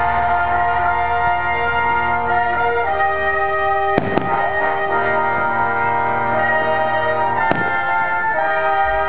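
Orchestra playing slow, held chords led by brass, with two firework bursts cracking through the music, one about four seconds in and one near the end.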